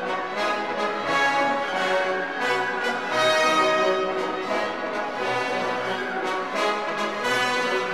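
Orchestral background music led by brass, with a steady beat.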